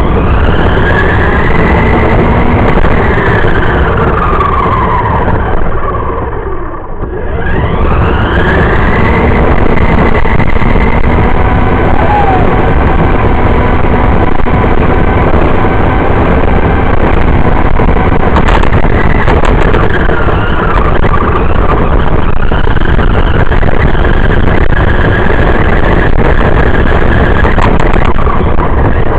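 Radio-controlled car driving, heard from a camera mounted on it: a high motor and gear whine that rises and falls with speed over a loud, rough rumble of its tyres on pavement. The sound drops away briefly about seven seconds in, then climbs back and runs steadily.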